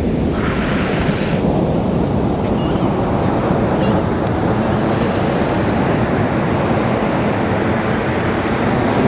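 Ocean surf washing onto a beach: a steady, loud rush of breaking waves.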